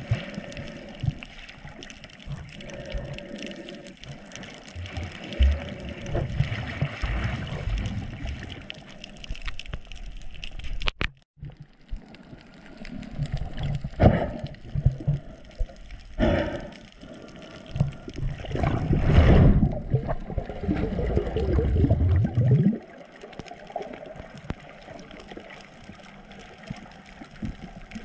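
Water sloshing and gurgling around a snorkeller's GoPro, with uneven low rumbles and splashes. A longer, louder rush of water comes about two-thirds of the way through and cuts off suddenly.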